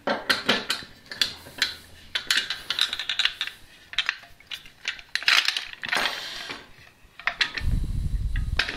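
Metal clinks, rattles and knocks of an aluminium bar clamp being handled, its jaw moved along the bar and a plywood strip fitted into the hollow aluminium bar. Near the end comes a low scraping rub as the strip slides into the bar.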